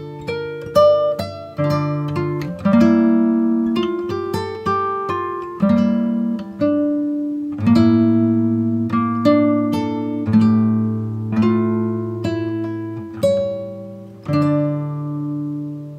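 Background music: an acoustic guitar picking single notes and chords, each note struck and then fading away.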